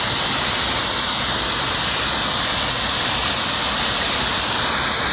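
Floodwater pouring over a low ledge and rushing on, a steady rush of water.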